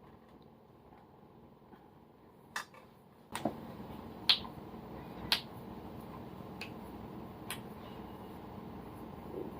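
A series of sharp, separate cracks and clicks, about seven spread unevenly over several seconds, the loudest about four seconds in: joints popping as they are worked during a hilot bonesetting massage. A faint steady hum comes in about three seconds in.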